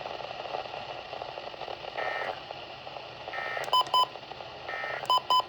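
Emergency Alert System end-of-message data: three short warbling digital bursts about a second and a half apart over steady radio hiss. Two pairs of sharp electronic beeps come in the second half.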